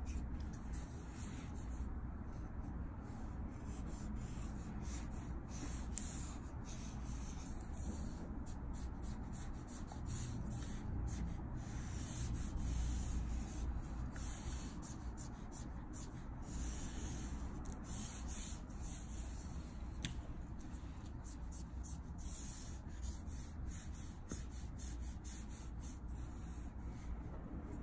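Copic marker stroked again and again across Strathmore Bristol paper, a soft dry scratching rub with each of many short, irregular strokes.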